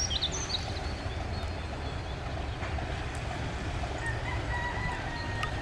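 Class 31 diesel locomotive's engine idling as a steady low rumble, with birds chirping briefly at the start. A thin, high, steady tone sounds for about a second and a half near the end.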